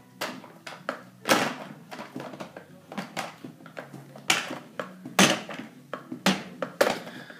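Heavy plastic toy train being handled and knocked against a high-chair tray: irregular sharp knocks and clatters, the loudest about a second in and around four and five seconds in.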